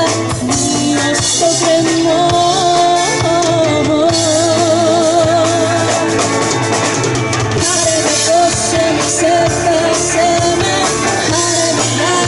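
Live pop-rock band playing: a woman singing lead into a microphone over amplified electric guitars, keyboards and a drum kit, with a long wavering held note a few seconds in.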